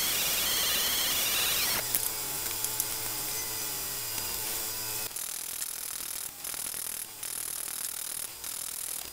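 A short run of metalworking sounds on a small steel part. First a small metal-cutting bandsaw cuts quarter-inch angle iron. Just under two seconds in, a hand tap turns with a wavering whine and clicks as it threads a hole. From about five seconds in comes a series of hand-file strokes on the steel.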